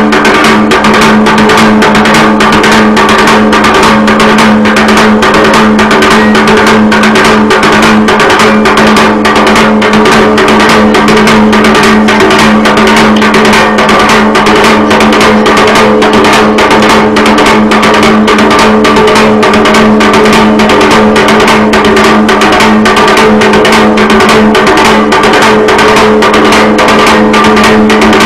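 Loud folk dance music: a large hand-held drum beaten in a fast, even rhythm over a steady held drone note.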